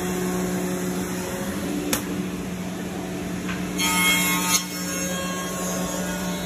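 MDK3113B CNC tenoning machine running with a steady low motor hum. There is a sharp click about two seconds in, and a brief louder, higher whine just before four and a half seconds that ends in another click.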